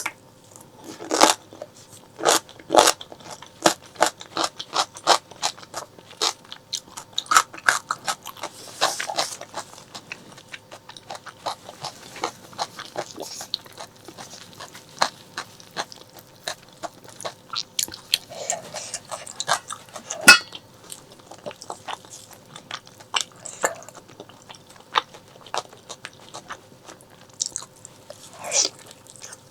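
Close-miked chewing and biting of braised pork leg: a steady stream of sharp, irregular wet mouth clicks and smacks, with one especially loud click about twenty seconds in.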